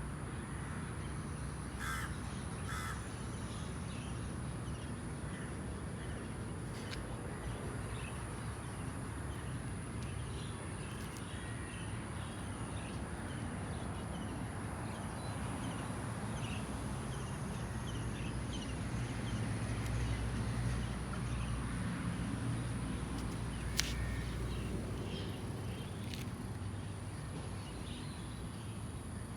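Outdoor background with birds calling on and off over a steady high hiss, and a single sharp click about three-quarters of the way through.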